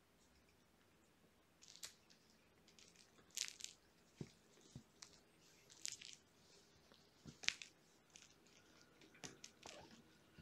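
Near silence broken by a dozen or so faint, brief rustles and soft clicks from kittens moving and playing on a blanket and carpet.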